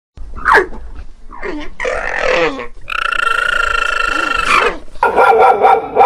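Animal calls: a few short falling cries, then one long, steady high call lasting nearly two seconds, then a dog barking loudly in the last second.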